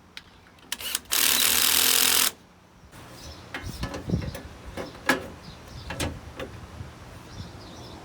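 A power drill/driver runs in one loud burst of about a second, driving in a bolt, followed by scattered clicks and knocks of metal parts being handled.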